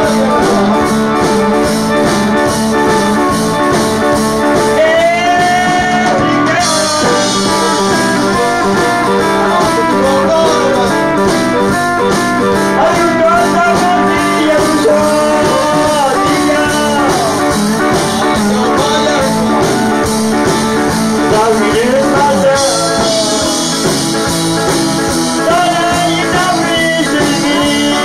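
Cajun band playing live, led by a button accordion, with a man singing over it.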